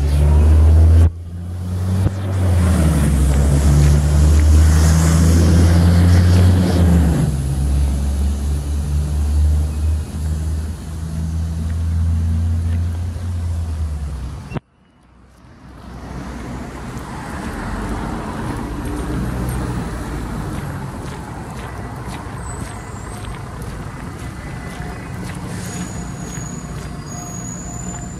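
A large road vehicle's engine running loud and close, its pitch shifting in steps, then cutting off suddenly about halfway. Afterwards steady, quieter street traffic, with a few short high chirps near the end.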